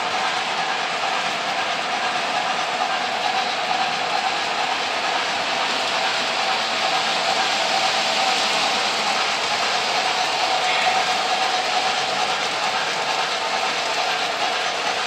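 O gauge model freight trains running on three-rail track: a steady whir of motors and wheels rolling over the rails, a little louder in the middle as a train passes close by.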